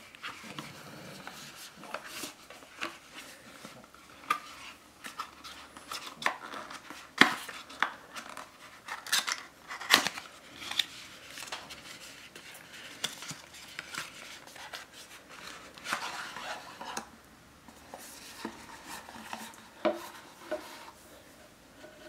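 Paperboard product box handled and opened by hand, its flap lifted and a plastic bottle drawn out. Scattered sharp taps and clicks, the loudest about seven and ten seconds in, with stretches of rustling and scraping cardboard.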